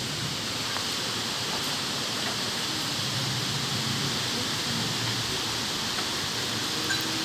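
Steady rushing noise of storm wind and rain, constant without gusts or breaks.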